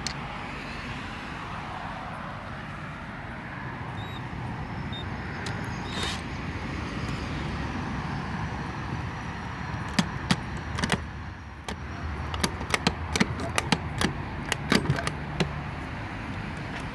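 Steady road-traffic noise, with an irregular run of sharp metal clicks and clinks from about ten seconds in as bolts are worked out of a scooter's variator cover.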